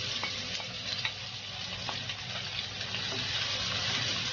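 Ginger, shallots, garlic and bird's-eye chilies sizzling in hot oil as they are stirred, a steady frying hiss with a few sharp clicks.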